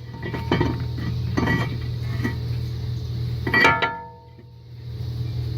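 Cast iron brake rotor and steel brake hardware clinking as they are fitted onto the front wheel hub: four or five sharp metal clinks, the loudest about three and a half seconds in, ringing briefly.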